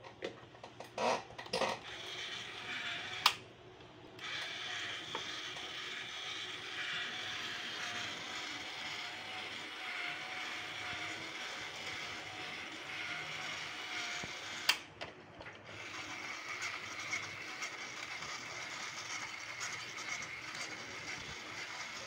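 Electric motor and gearing inside a vintage Estrela Amelinha doll running with a steady, slightly wavering whir as it works her arms. Several clicks come in the first few seconds as it is switched on. A sharp click about two-thirds through brings a brief pause before the whir starts again.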